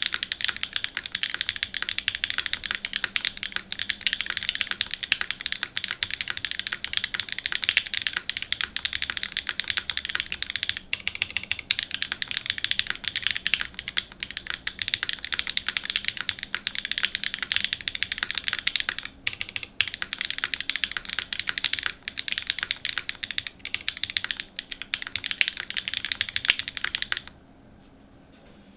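Geonworks F1-8X V2 mechanical keyboard with an aluminium plate, lubed OG BCP switches (Cherry top, NK Cream stem, H1 bottom) and GMK Amethyst keycaps, typed on quickly and without pause in a stream of clacky keystrokes. The typing stops briefly near the end.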